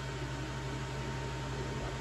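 Steady low hum with a thin constant tone and an even hiss: room tone, with no distinct handling knocks or clicks.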